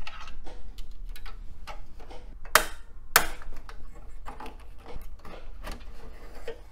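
Small plastic clicks, ticks and knocks of a Pentium II Slot 1 CPU cartridge being worked free of its retention bracket, with two sharper snaps about half a second apart near the middle.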